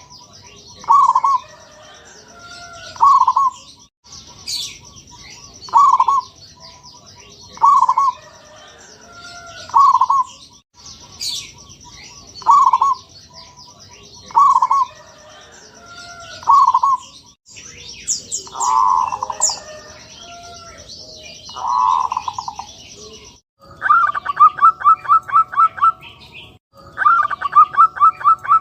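Zebra dove cooing, its short rolling coos repeated every second or two, with other small birds chirping high in the background. About 23 seconds in, a different call takes over: a fast, even run of pulsed notes, about six a second.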